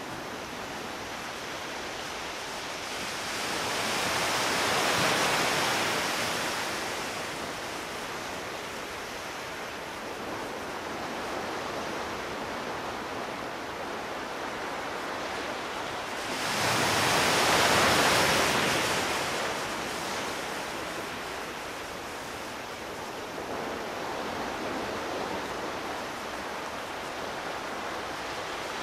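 Ocean surf washing steadily, with two bigger waves swelling and breaking, about four seconds in and again past the middle.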